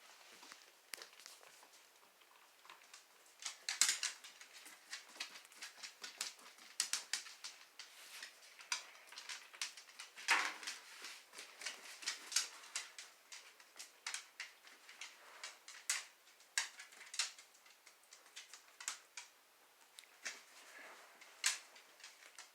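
Irregular clicks, taps and scrapes of a dachshund pawing and mouthing at a Busy Buddy puzzle toy, trying to work a ball out of it.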